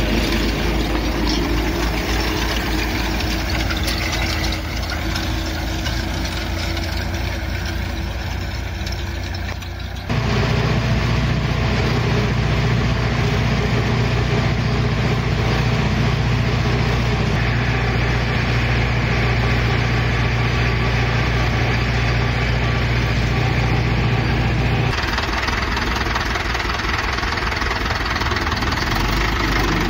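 Ursus C-360 tractor's four-cylinder diesel engine running steadily under load. About ten seconds in the sound jumps louder, with a strong steady low drone, and about 25 s in it changes again, dropping back a little.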